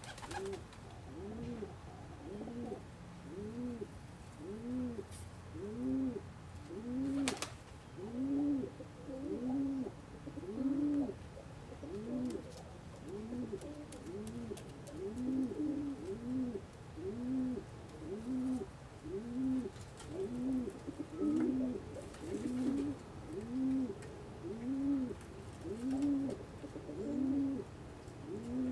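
Domestic pigeons cooing over and over, a steady run of low rising-and-falling coos about once a second, with a single sharp click about seven seconds in.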